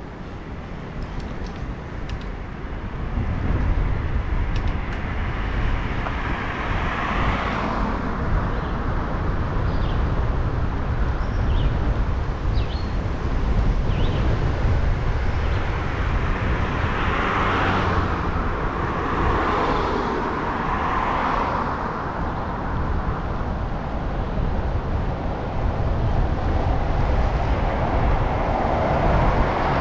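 Wind rumbling on the microphone of a bike-mounted action camera while riding, with road traffic swelling past a few times.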